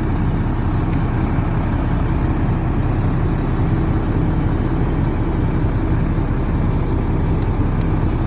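Semi-truck diesel engine idling steadily, with a couple of faint clicks over it.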